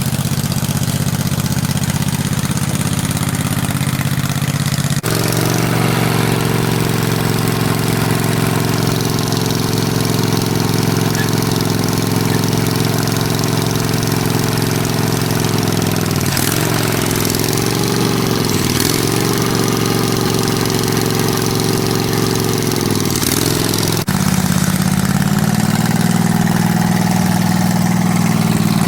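25 hp two-cylinder Kohler gasoline engine of a converted Craftsman LT1000 riding mower running steadily. Its pitch dips and recovers a few times in the middle, and the sound changes abruptly twice.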